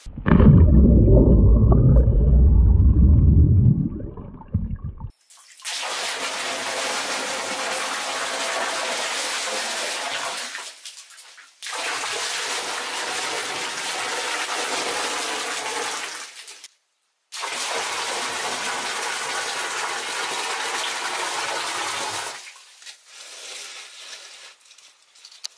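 Water running and splashing steadily, in three stretches broken by abrupt cuts. Before it, a loud low rumble lasts about five seconds.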